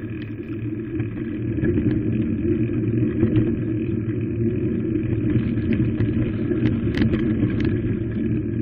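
A vehicle riding along a rough dirt path: a steady rumble of its running and tyres, with scattered clicks and knocks from bumps, the sharpest about seven seconds in.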